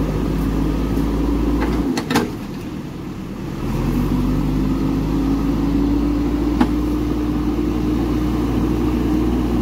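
Pickup truck's diesel engine running steadily, with a couple of brief knocks about two seconds in. About three and a half seconds in, it grows louder and its pitch rises a little, then holds, as it is put under load.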